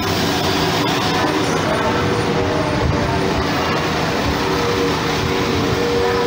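West Midlands Railway Class 172 Turbostar diesel multiple unit passing at close range. Its underfloor diesel engines hold a steady tone over the continuous rumble of wheels on rail.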